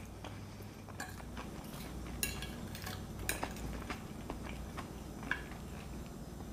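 Metal fork scraping and clicking against a plate as salad is scooped up: a handful of light, scattered clinks over a low steady hum.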